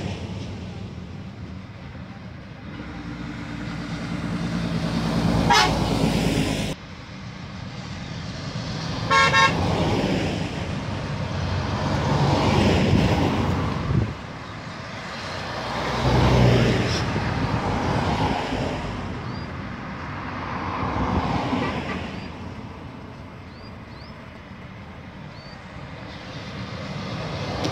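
Heavy trucks and a car driving past one after another, each pass swelling and fading away. A short horn toot sounds about nine seconds in.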